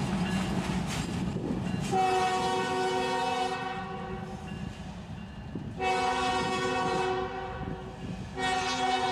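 CSX diesel locomotives running light: engine rumble and wheel clatter for the first two seconds, then the lead unit's air horn sounds a chord three times, each blast over a second long, the third still sounding at the end.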